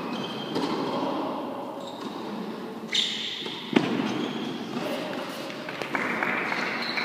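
Tennis rally on an indoor court: two sharp racket-on-ball hits a little past the middle, then spectators start clapping near the end as the point is won.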